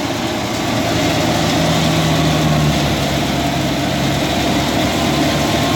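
Tractor engine running steadily while driving a wheat thresher, a continuous mechanical drone with a steady hum.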